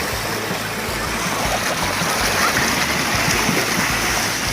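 Mountain stream water running steadily.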